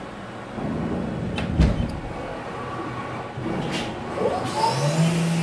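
The Haas CNC mill's enclosure door slides shut with a heavy knock about a second and a half in. The machine then starts its cycle, with motor whines gliding up and down before settling into a steady hum near the end as the spindle comes up to speed.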